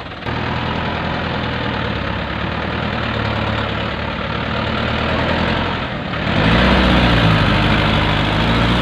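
Diesel dump truck engines running under load as a mired Toyota Dyna dump truck is towed out of soft mud. About six seconds in, the engines rev up and get louder as the pull takes hold.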